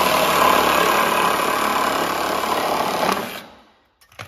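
Milwaukee compact cordless reciprocating saw with a fine-tooth blade cutting through a foam faux beam. It runs steadily, then stops and winds down about three and a half seconds in, followed by a light knock near the end.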